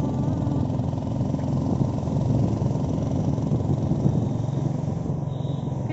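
A motor vehicle running steadily, heard as a continuous low rumble.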